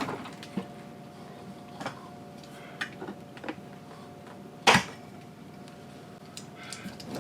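Small clicks and taps of hands working at the refrigerator door's metal latch pins and hardware, with one sharp knock about two-thirds of the way in, over a faint steady hum.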